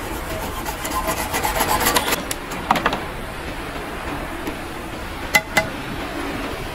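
Knife blade scraping the white plastic tube of a toilet-cistern flush fitting in quick strokes for about two seconds, then a few clicks, and about five seconds in two sharp clicks close together.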